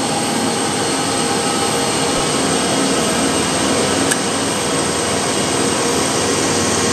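Diesel engines of heavy trucks pulling up a steep climb in low gear: a steady, loud engine drone.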